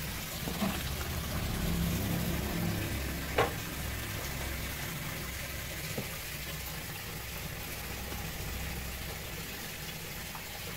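Hot oil sizzling steadily as food deep-fries, with a few brief clinks.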